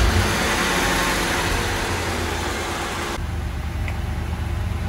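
Mercedes 500SEC's 5.0-litre M117 V8 running steadily at idle moments after starting, a low rumble with a hiss over it. The hiss drops away about three seconds in, while the rumble carries on.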